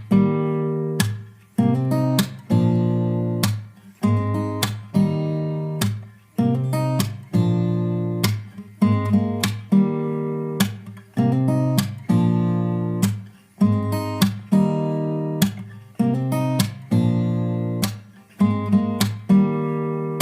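Background music: acoustic guitar strumming chords in a steady rhythm, each strum sharp and then fading.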